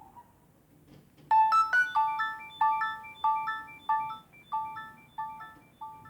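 Nokia 6300 mobile phone playing one of its ringtones through its loudspeaker. A bright electronic melody starts about a second in, with a quick run of notes and then a short repeating figure of notes.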